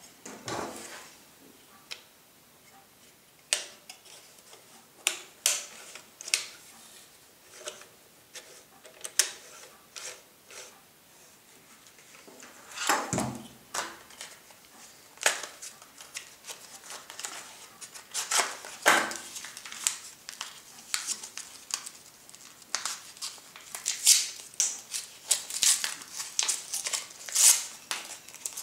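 Scattered clicks and taps from hands handling a camera and a cardboard film box. In the last third these give way to dense crinkling and tearing as the foil wrapper of a 120 film roll is pulled open.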